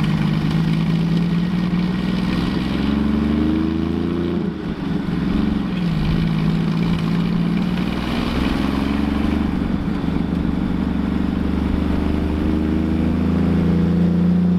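Hot rod's engine running, its pitch rising and falling a few times as it speeds up and slows.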